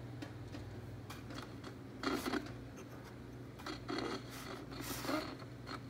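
Scraping and rubbing handling noise from the clock radio's controls being worked, in several short bouts over a steady low hum.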